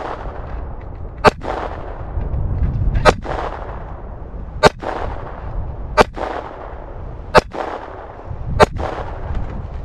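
Six single shots from a Beretta 21A pocket pistol in .22 LR, fired at a slow, steady pace about one and a half seconds apart, each a sharp crack with a short echo after it.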